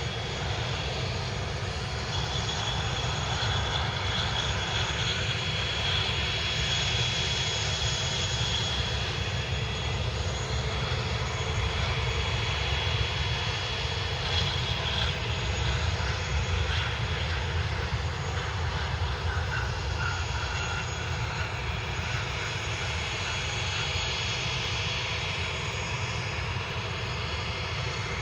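Airliner engines running with a steady high whine over a broad rumble, swelling gently toward the middle and easing off again.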